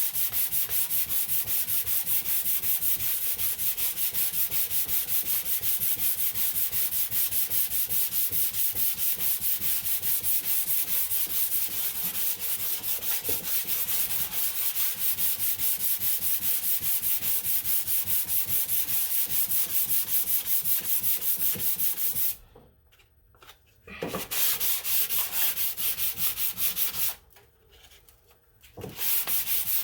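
Hand sanding with 220-grit closed-coat sandpaper: quick, even back-and-forth rasping strokes over spot putty on a car body panel, stopping twice briefly near the end. The putty is being sanded down to feather its edges into the surrounding filler and paint.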